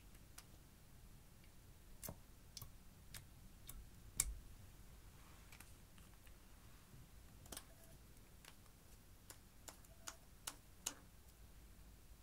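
Scattered sharp clicks and taps from plastic makeup packaging being handled over glass dishes: caps pulled off and clicked, tubes knocking the glass. The loudest click comes about four seconds in, and a quick run of them comes in the last few seconds. Between the clicks the room is near silent.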